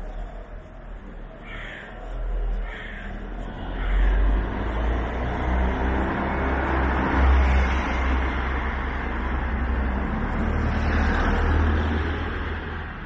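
Cars passing close along a village street, tyre and engine noise building from about four seconds in and swelling twice as two vehicles go by. A crow caws about a second and a half in and again near three seconds.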